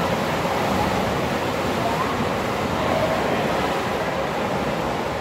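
Steady din of a swim-meet crowd and pool water: mixed chatter and splashing blurred into one even wash.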